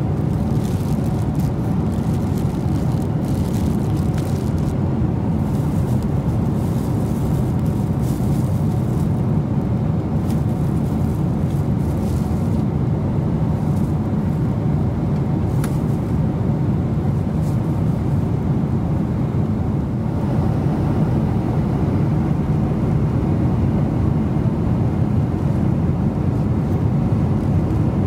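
Steady low drone inside the economy cabin of a four-engine Boeing 747-400 in cruise: engine and airflow noise. Over it, thin plastic wrapping on bedding crinkles and rustles through about the first half as it is handled and pulled off.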